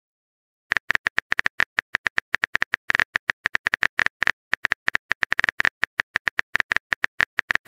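Key-click sound effect of a texting app, rapid short clicks, several a second, as a message is typed out letter by letter; they start a little under a second in.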